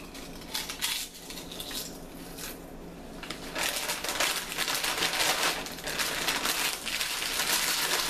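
Close-up crunching of potato chips being bitten and chewed: a few crisp cracks in the first second, then dense, louder crunching from about halfway through.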